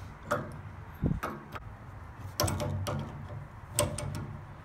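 Metal hand tools clicking and knocking against the brass tube fittings under a gas water heater's control valve as they are loosened, about four sharp clicks over a steady low hum.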